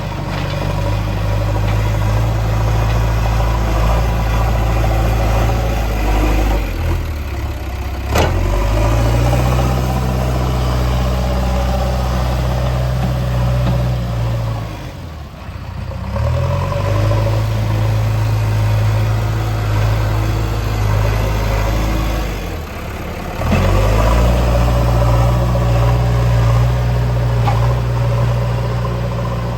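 JCB 3DX backhoe loader's diesel engine running under load as it levels soil. Its note drops and picks up again about 7, 15 and 23 seconds in, and there is a sharp click about 8 seconds in.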